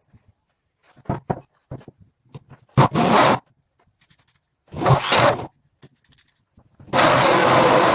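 Short scraping and rubbing sounds with a few light knocks, as of a workpiece being handled. About seven seconds in, a power tool switches on and runs loud and steady.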